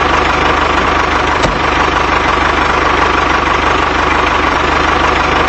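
Tractor engine running steadily at an even speed, a fast low chugging under a continuous hum.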